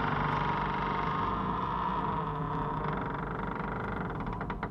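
An engine running steadily, its level easing down slightly toward the end.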